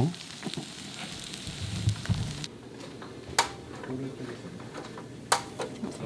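Yellowtail and vegetables sizzling on a hot, oiled stone grilling slab, a steady hiss that stops about two and a half seconds in. Two sharp knocks follow later.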